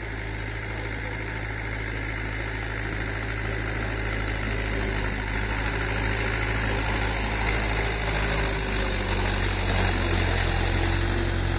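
Mahindra 475 DI tractor's four-cylinder diesel engine running at a steady pitch as the tractor drives on cage wheels through a flooded paddy field, growing louder as it approaches over the first several seconds.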